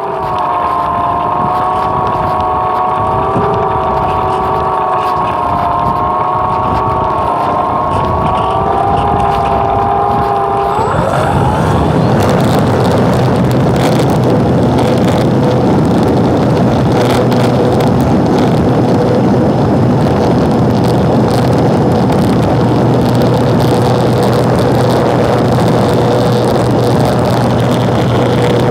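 Propeller aircraft engine running at a low, steady setting, then opened up with a quick rise in pitch about eleven seconds in. From then on it runs steadily at high power under a heavy rush of wind and airflow noise.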